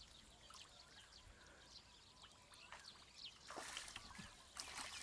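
Near silence, with faint small birds chirping in many short, high, falling notes, and a soft slosh of muddy water about three and a half seconds in as a man gropes in the mud.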